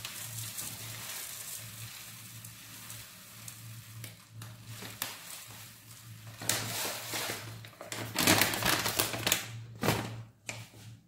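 Dry oat flakes pouring from a packet into a cup, a soft steady hiss, followed in the second half by louder, irregular crinkling of the packet as it is shaken and handled.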